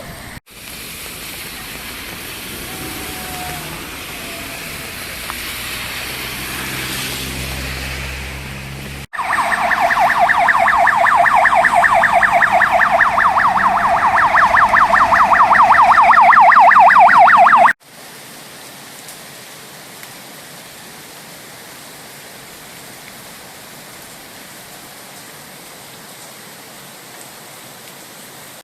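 Emergency-vehicle siren in a rapid warble, about ten cycles a second, lasting about eight seconds from about nine seconds in; it is the loudest sound. Before and after it there is a steady rushing noise, with a low engine-like hum in the first part.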